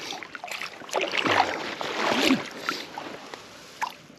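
Splashing and sloshing in shallow water in irregular bursts as a small hooked perch is landed and grabbed by hand, busiest in the middle and dying down near the end.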